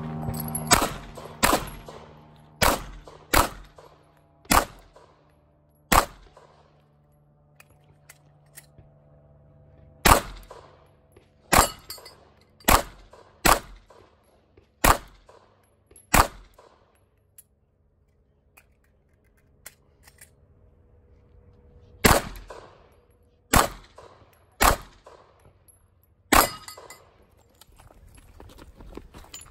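Glock 43 9mm subcompact pistol firing aimed shots roughly one to one and a half seconds apart, in strings of about six. Between strings come quiet pauses of several seconds, the six-round magazine changes of the Back-Up Gun division.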